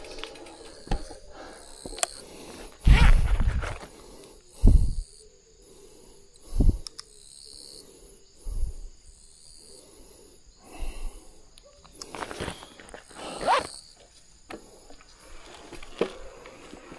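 A person's heavy, irregular breathing close to the microphone, in a series of loud puffs a second or more apart.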